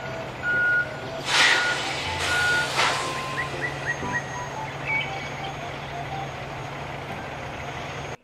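Heavy truck running with a steady low engine hum, a reversing alarm beeping repeatedly through the first few seconds, and two short bursts of hissing air about one and a half and three seconds in.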